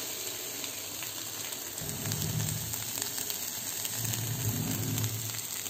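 Egg bhurji frying in oil in a pan with a steady sizzle while a metal spatula stirs it. A low hum swells twice.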